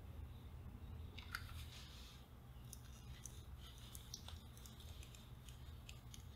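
Faint small clicks and scrapes of needle-nose pliers gripping and working a stubborn small capacitor loose from a transistor radio's circuit board, over a low steady hum.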